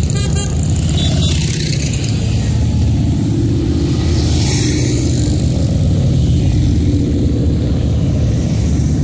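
A procession of motorcycles riding past, their engines running steadily and evenly, with a few short high beeps just after the start.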